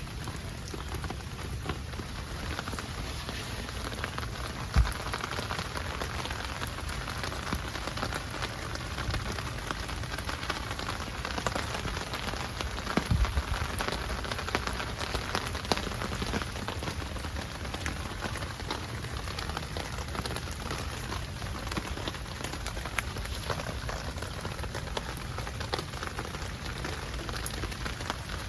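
Steady rain falling on the garden, an even hiss with many separate drop taps. Two brief dull thumps, about five seconds in and again around thirteen seconds in.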